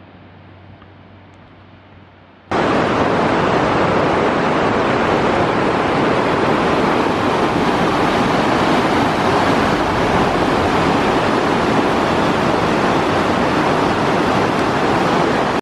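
A faint low rumble, then about two and a half seconds in a loud, steady rush of fast whitewater tumbling over the rocks of a mountain river cuts in suddenly.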